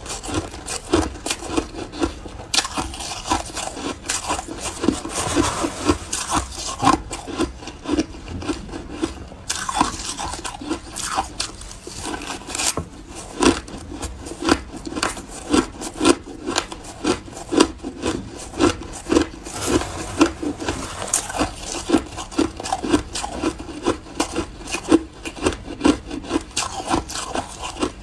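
Mouthfuls of shaved ice being chewed close to the microphone: a grainy, grinding crunch that repeats about twice a second.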